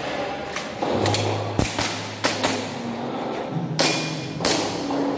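Airsoft pistol firing several sharp shots at irregular intervals, some in quick pairs, over background music.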